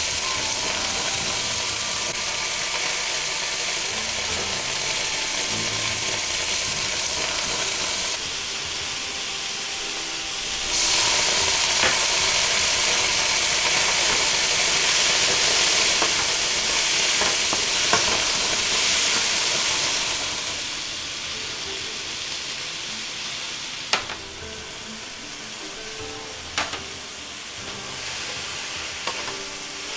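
Aubergine and shrimp sizzling in a hot nonstick wok as they are stir-fried and tossed with a wooden spatula. The sizzle grows louder about a third of the way in and eases off after about two thirds. A few sharp taps of the spatula on the wok come near the end.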